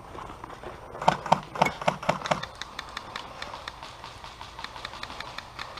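Footsteps of a player moving quickly over the ground: a run of heavy footfalls about three a second starting about a second in, then lighter, quicker steps.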